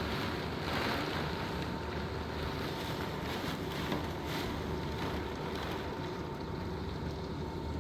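Hurricane wind and driving rain rushing steadily against the house. A faint steady tone sits beneath it.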